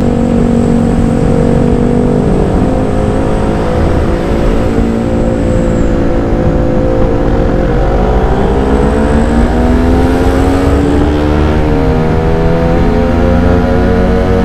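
Motorcycle engine running at road speed, with wind rushing over the microphone. Its pitch holds steady for several seconds, climbs for about three seconds past the midpoint, then drops sharply and settles again.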